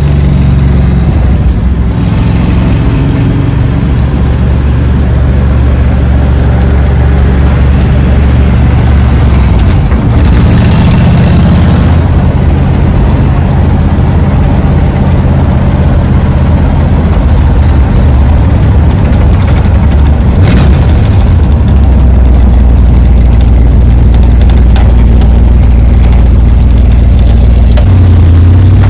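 Old rat rod pickup truck's engine running loud at road speed, heard from inside the cab with road and wind noise. The engine note shifts a few times as it drives.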